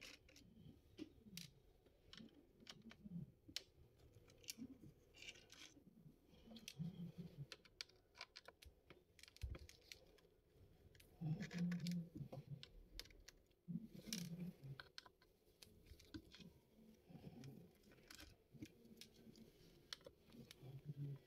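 Faint, scattered clicks and taps of a screwdriver and hands working on a laptop's plastic base as its bottom screws are undone, with some low handling rumble.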